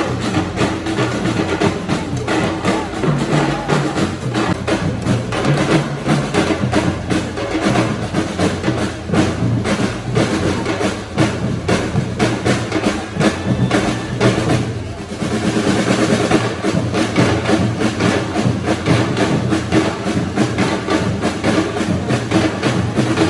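Music with a fast, busy percussion beat, dipping briefly about two-thirds of the way through.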